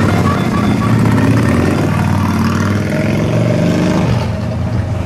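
Cruiser motorcycles riding past one after another, their engines running and changing note as each bike goes by.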